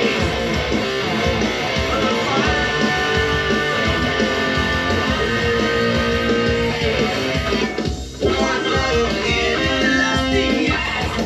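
Jackson electric guitar played with a pick, a continuous riff with many pitched notes; the sound dips briefly about eight seconds in, then carries on.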